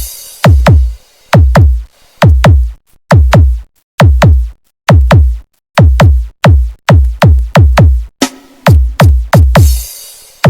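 Electronic sound-check remix music made of deep drum-machine kick hits, each dropping in pitch. They come in quick runs of three or four, broken by brief silent gaps. A hissing noise sweep builds near the end.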